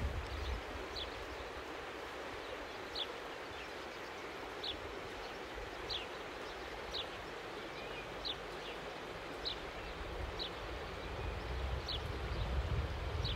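Rural outdoor ambience: a bird repeats a short, high, downward chirp about once a second over a steady hiss of moving water and breeze. Wind rumbles on the microphone near the end.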